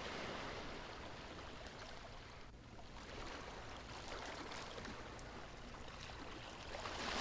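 Soft sea waves washing on a shore, a steady rushing wash that ebbs briefly about a third of the way through and swells again near the end.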